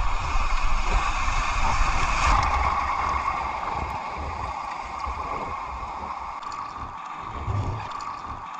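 Water rushing and washing around a sea kayak surfing waves, a steady noisy wash with an uneven low rumble.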